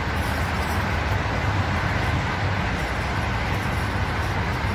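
Steady road traffic noise from cars on a busy multi-lane road, with a low hum underneath.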